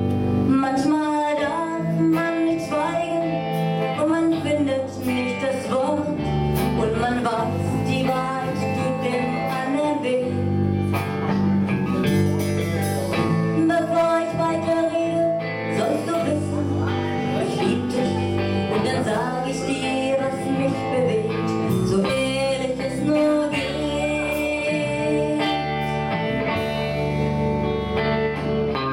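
Live rock band playing: a woman singing lead over electric guitar, bass guitar and drums.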